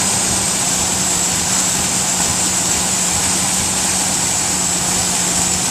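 Ford Ranger 4.0 OHV V6 running steadily at idle, with a thin high whine throughout. The engine has a vacuum leak at the upper intake manifold.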